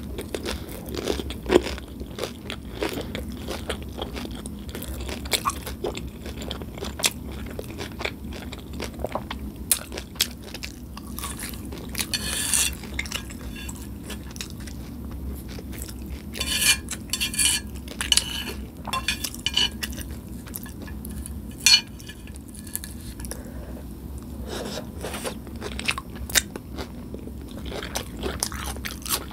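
Close-miked chewing and biting of hard Nacho Cheese Doritos taco shells: a string of crisp crunches and crackles, busiest around the middle and again about three-quarters of the way through.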